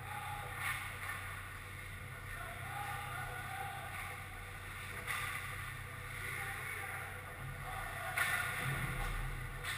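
Indoor ice rink ambience: a steady low hum with distant hockey play at the far end, including three faint knocks about a second in, about five seconds in and about eight seconds in.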